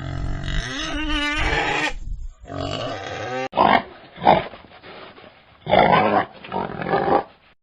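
Pigs squealing and grunting: a long, wavering squeal for about two seconds and a shorter one after it, then an abrupt change to a run of short grunts.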